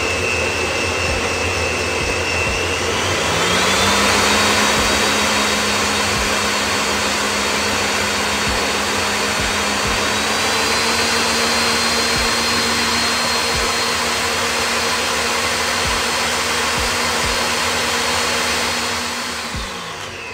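Ninja blender motor running a full jar of chile sauce, its whine stepping up in pitch twice as the speed is turned up to top speed, then winding down near the end.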